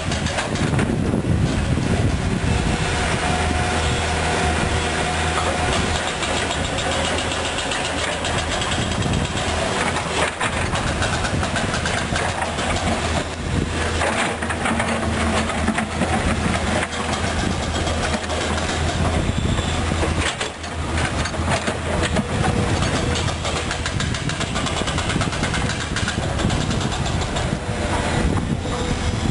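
Diesel engines running steadily at close range: a Komatsu PC200 hydraulic excavator working beside an idling Mitsubishi Fuso Canter dump truck, with a constant low hum and occasional knocks.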